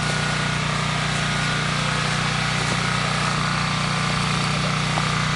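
Steady low mechanical hum over a constant hiss, unchanging in level, like a small engine or motor running.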